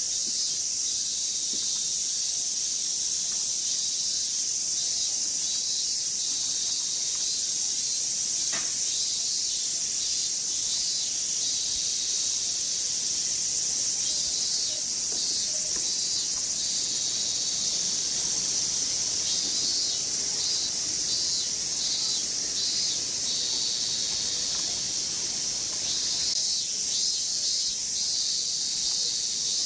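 Cicadas chorusing: a steady, high-pitched buzz with a pulsing chirp that comes and goes.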